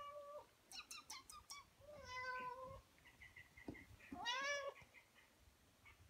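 Calico house cat meowing: a call trailing off at the start, then two more meows, one about two seconds in and one a little past four seconds that rises and falls. A quick run of sharp clicks about a second in.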